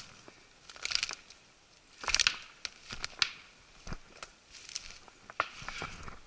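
Footsteps crunching through dry reeds and brush, with irregular bursts of rustling and crackling, the loudest about two seconds in.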